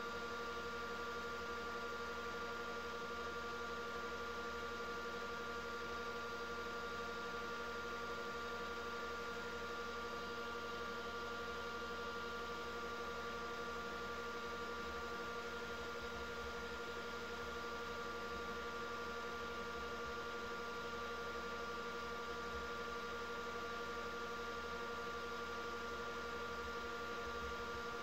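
Wood lathe running at a steady speed, spinning a felt buffing wheel in its chuck while a resin piece is polished against it: an even hum with a few fixed whining tones and a soft hiss, unchanging throughout.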